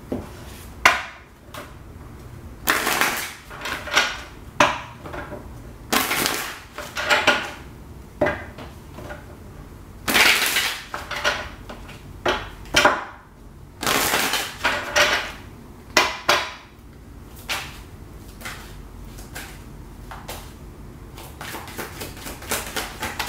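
A deck of tarot cards being shuffled by hand: short bursts of cards slapping and rattling against each other, a second or two apart, with brief pauses between.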